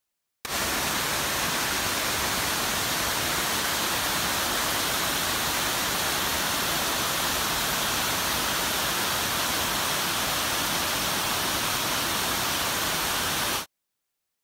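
Waterfall cascading down sloping rock ledges: a steady rush of water that starts abruptly about half a second in and cuts off shortly before the end.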